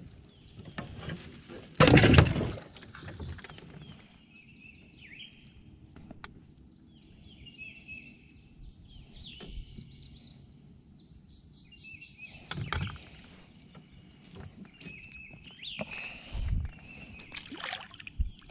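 Small birds chirping repeatedly in swampy woodland around a small fishing boat, with a brief loud noise about two seconds in and a few small knocks and clicks of gear being handled in the boat.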